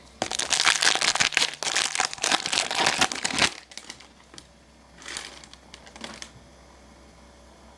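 Crinkling of plastic trading-card packaging as cards are handled, a dense rustle for the first three and a half seconds, then two brief, fainter rustles.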